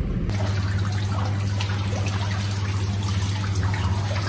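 Water trickling and dripping over a small decorative wooden water wheel, over a steady low hum.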